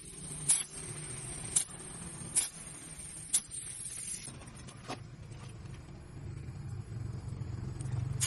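A motor running with a steady low hum, with about five sharp clicks spread over the first five seconds.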